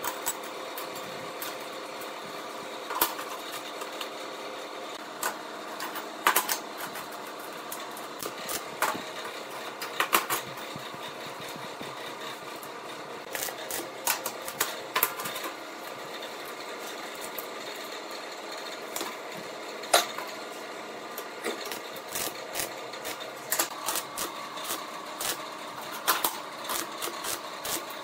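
Stick (arc) welding on square steel tubing: short welds struck one after another, each a burst of irregular sharp crackles and pops, more frequent in the second half, over a steady hum.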